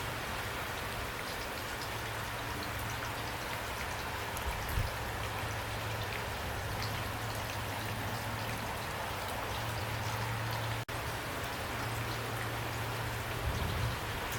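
Steady rain falling, an even hiss with scattered individual drops ticking through it. The sound cuts out for an instant about eleven seconds in.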